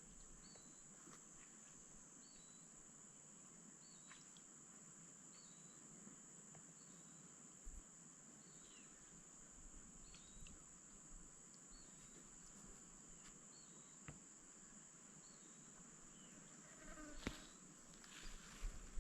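Insects trilling in one steady, high-pitched drone, with faint short chirps repeating about every three-quarters of a second. A brief louder sound comes near the end.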